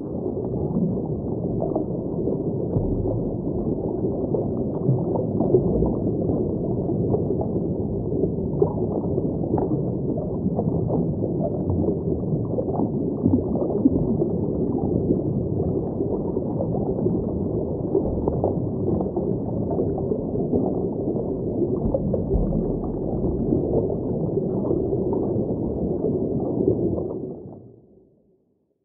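Underwater ambience: a steady, muffled rumble of water with crackling bubbles, fading out near the end.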